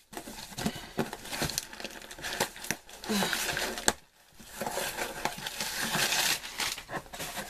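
Packaging being handled and unpacked: crinkling and rustling with many small clicks and knocks from cardboard boxes and packing material, with a short lull about four seconds in.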